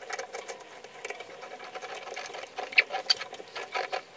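Metal bathtub spout being twisted by hand onto its pipe: rapid, irregular small clicks and scraping, with a couple of short squeaks about three seconds in.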